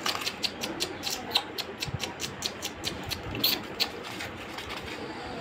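Pet rabbits rummaging at a sack of flour: a fast, even run of small crisp clicks, about six a second, that stops about four seconds in.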